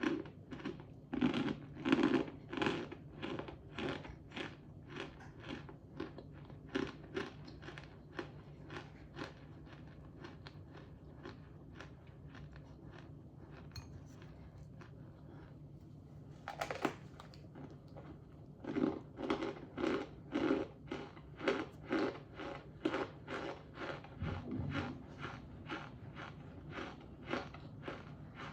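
Close-up chewing of crunchy cornstarch chunks, a steady run of crunches about two to three a second. The chewing thins out midway, a sharp bite sounds about 17 seconds in, and steady crunching resumes. A constant low hum runs underneath.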